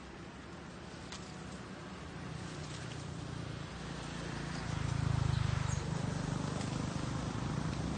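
Low engine rumble that builds steadily, loudest about five seconds in.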